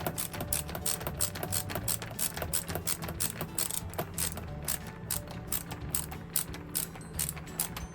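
Background music with a quick, even ticking beat over steady low notes.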